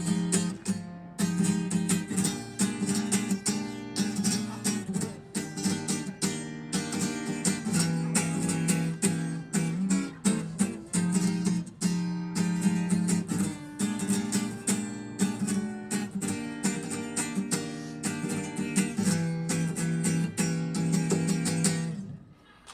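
Acoustic guitar strummed in a steady rhythm, playing the song's closing instrumental with no singing; the playing stops and rings out shortly before the end.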